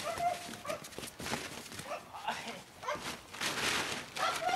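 Belgian Malinois whining in short high calls, several times, while gripping and tussling with its handler, with scuffling and rustling on a plastic tarp about three and a half seconds in.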